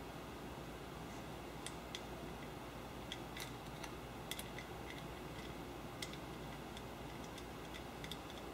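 Faint, irregular small metallic clicks and ticks of nuts and washers being handled and run onto engine studs by hand, over a steady low hiss.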